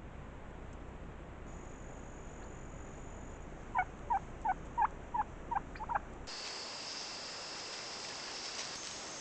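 An animal calling: a run of about eight short calls, each sliding down in pitch, at about three or four a second, over a steady faint outdoor hiss.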